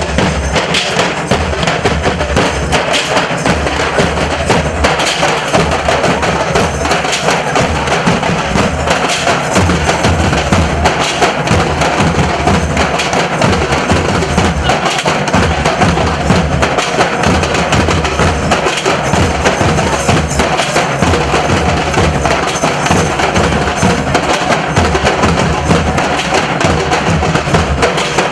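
Nasik dhol troupe, with large dhol drums and sharp tasha drums, drumming a fast, loud, unbroken beat.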